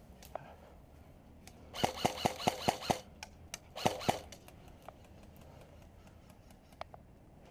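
Airsoft gun firing: a quick string of about seven shots about two seconds in, then three more about a second later, with scattered fainter clicks of other airsoft fire.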